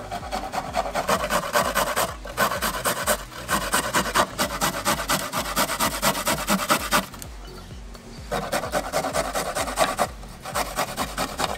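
Fresh garlic cloves grated on the fine side of a stainless steel box grater: quick, rhythmic rasping strokes, several a second, with short breaks and a longer pause about seven seconds in.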